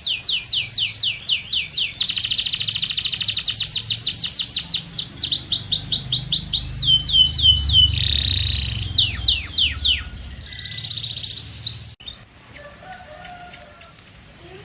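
Canary singing in fast rolling phrases, each a run of the same falling whistled note repeated several times a second, with a dense trill and some lower buzzy notes in between. The song stops abruptly about twelve seconds in, leaving fainter scattered chirps.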